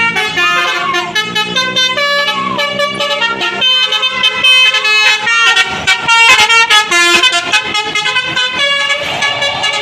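Basuri 'telolet' multi-tone bus horn playing a quick melody of stepped notes, with short sliding notes in the first half.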